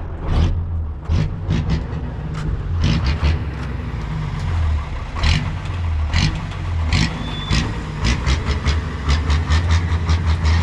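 An engine running steadily with a low hum, with many irregular sharp knocks and clatter over it that come thicker in the second half.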